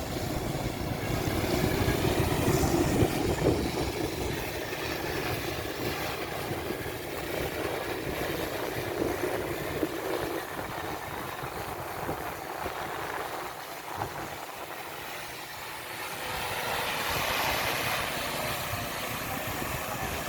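Steady motor noise with a low rumble that fades about two-thirds of the way through, leaving a higher hiss near the end.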